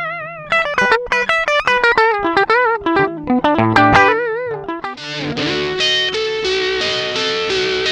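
Electric guitar played through an FPGA-based multi-effect processor: a fast lead line of plucked single notes with vibrato, then about five seconds in a switch to a thicker, brighter distorted tone with held notes.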